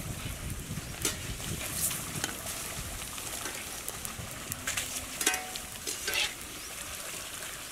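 A cow being milked by hand: streams of milk squirting into a pail, heard as a steady hiss with a few faint knocks.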